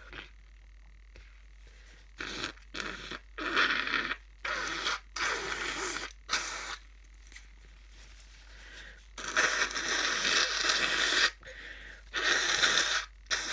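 A person with a cold making a run of short, noisy, wheezy breaths, then a longer one lasting about two seconds and a shorter one near the end.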